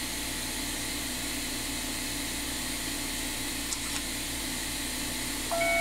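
iTero digital intraoral scanner running with a steady fan hiss and hum. Near the end it gives one short electronic beep of several pitches at once, the scanner signalling a captured view.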